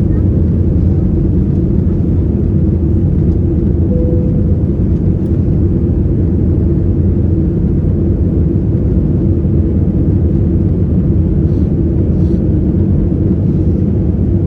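Cabin noise inside an Airbus A320-216, its CFM56 engines and the airflow making a loud, steady low rumble.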